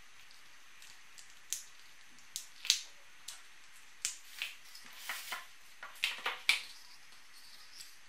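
Small scissors of a folding multi-tool snipping through heat shrink tubing: a dozen or so sharp, irregular snips and clicks over about five seconds, the loudest about two and a half seconds in and again near six and a half seconds.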